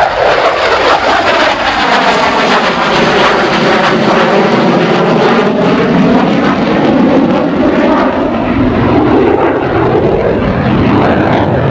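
An F-14B Tomcat's twin General Electric F110 turbofan engines, loud through a fast, low flyby pass, with a swirling tone that sweeps down and back up as the jet goes by.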